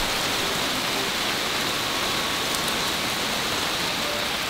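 Heavy rain pouring steadily in a dense, even hiss.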